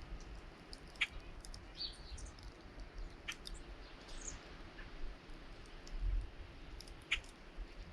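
Small birds at a feeder: a few short, high chirps among scattered sharp clicks, over a low wind rumble.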